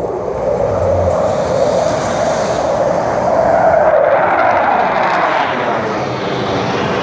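Jet engines of four F-16 Fighting Falcons flying over in close formation: loud, continuous jet noise that rises in the first second and stays loud.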